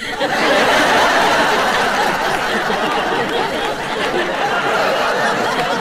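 A large audience laughing together, loud and sustained, in response to a comedian's punchline.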